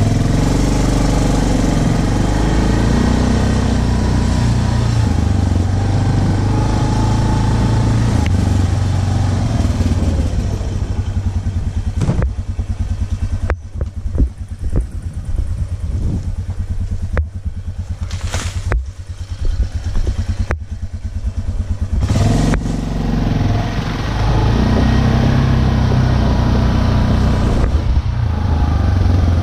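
Yamaha ATV engine running as the quad drives a rough wooded trail at low speed. About twelve seconds in the engine eases off and the sound turns uneven, with a run of knocks and rattles, before the engine picks up steady again about 22 seconds in.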